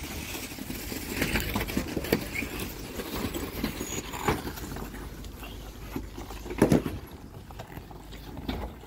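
Off-road vehicle crawling slowly over a rocky trail, tyres crunching on rock and gravel over a low engine rumble, with scattered knocks and one louder thump about two-thirds of the way through.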